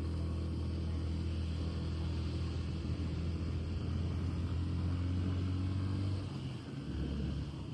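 Road vehicle driving: steady low engine hum and road rumble. About six seconds in the engine note drops and briefly gets quieter.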